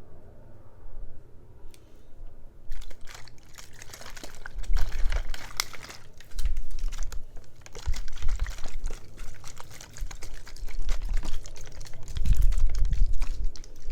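Close-miked ASMR trigger: after a quiet start, dense crackling and clicking begins about three seconds in, with soft low thuds among it.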